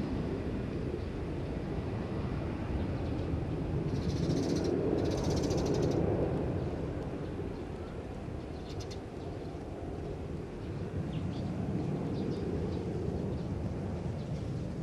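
Boeing 737-500's CFM56 turbofan engines rumbling low and steady as the jet climbs away after takeoff. A couple of short, high chirping calls cut through about four to six seconds in.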